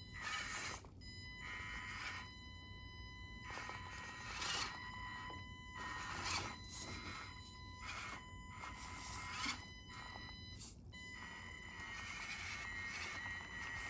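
Mini RC crawler (SCX24-scale) driving: its small electric drivetrain gives a steady high whine, broken by irregular short scrapes and clatters as it crawls.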